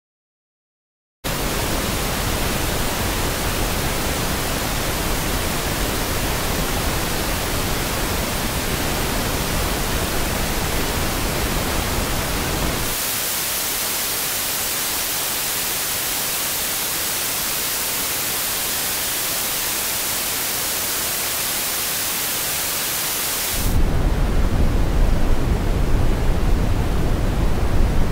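iOS 15 Background Sounds playing steady masking noise. After a moment of silence it starts as Balanced Noise, an even hiss across all pitches. About halfway through it switches to Bright Noise, a thinner, hissier sound with little bass, and for the last few seconds it plays Dark Noise, a deeper, slightly louder rumbling hiss.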